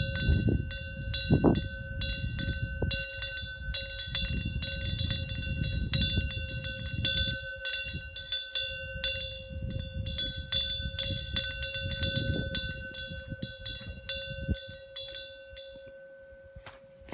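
A temple wind bell (a small bronze bell hung under the eaves, with a fish-shaped vane) ringing in the wind. Its clapper strikes rapidly and irregularly over a low rumble of wind noise. Near the end the strikes stop and the ringing tone hangs on, fading.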